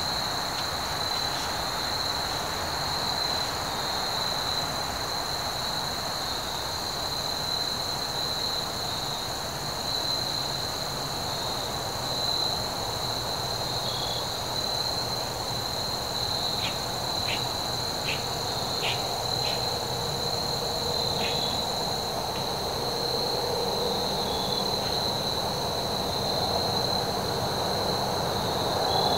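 Steady chorus of insects trilling at two high pitches, the higher one stopping about two-thirds of the way through, over a low steady rumble. A short run of about five quick clicks comes a little past the middle.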